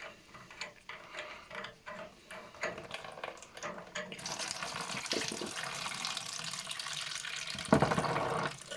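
Metal clicks and knocks as the filter nut and cap on a heating circulation pump are undone. Then water runs out of the opened filter housing, with a louder gush near the end.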